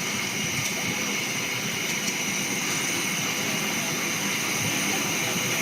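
Steady hiss of escaping steam from the steam locomotive Eddystone, with a constant high whistle-like edge to it.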